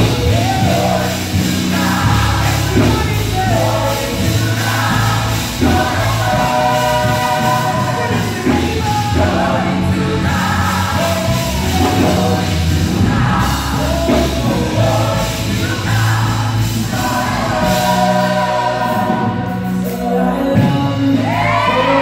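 Gospel vocal group singing in close harmony, phrase by phrase, with a lead singer out front, over live instrumental backing with a steady bass line.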